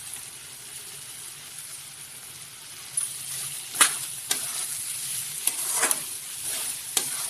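Masala of potatoes and peas sizzling in a hot metal kadai. From about three seconds in, a spatula stirs it, with a handful of sharp clicks and scrapes of the spatula against the pan.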